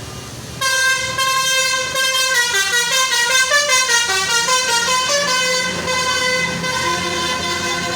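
Basuri telolet musical bus horn starting suddenly about half a second in and playing a tune of quickly changing notes.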